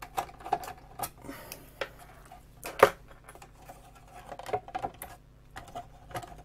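Irregular clicks and taps of plastic and small parts as the Cholestech LDX analyser's white plastic case and circuit board are handled during disassembly, with one sharper knock about three seconds in.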